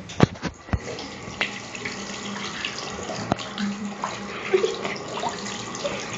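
Water running from a tap into a bathroom sink, wetting cardboard toilet-paper tubes under the stream. A few sharp knocks come in the first second.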